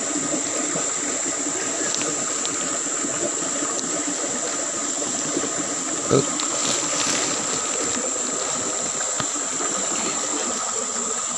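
A stream running steadily, with a brief knock about six seconds in.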